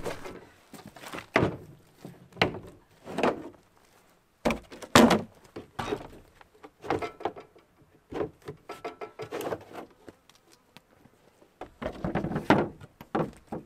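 Irregular metal knocks and clunks from a Norwood portable band sawmill's blade housing as its wheel cover is opened and the machine is handled with a hand tool, the loudest knock about five seconds in and a quick flurry of them near the end.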